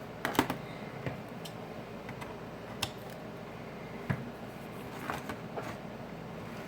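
Scattered small clicks and taps of handling at a repair bench as thin adhesive is fitted to a phone frame. The loudest cluster comes about half a second in, and single ticks follow every second or so, over a steady background hiss.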